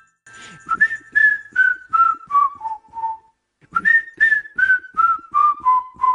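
Someone whistling two descending runs of about eight short notes each, every run falling about an octave, with a short pause between the runs.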